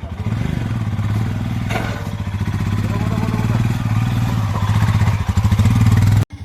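Single-cylinder Royal Enfield Himalayan motorcycle engine pulling at low, steady throttle with an even thumping beat, getting louder in the last couple of seconds and then cutting off abruptly near the end.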